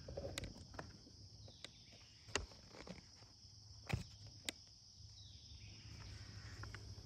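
Faint outdoor background of a steady, high insect chorus, crickets or similar, with a few soft clicks in the middle.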